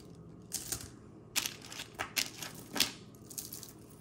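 Glass and stone beads of jewelry clicking and clacking against each other and a hard surface as pieces are handled: a run of about eight irregular sharp clicks, the loudest near the end of the third second.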